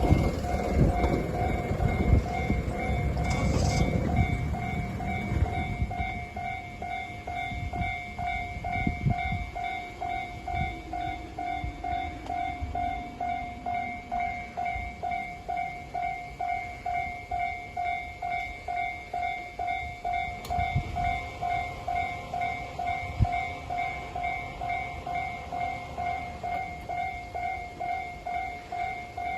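Railway level crossing's electronic warning bell ringing steadily, about two dings a second. A train runs past loudly at first, and its rumble fades away by about six seconds in.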